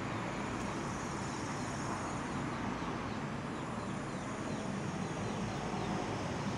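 Steady outdoor hiss. Through it, a bird gives a run of short, falling chirps, about three a second, from about two seconds in until about five seconds in.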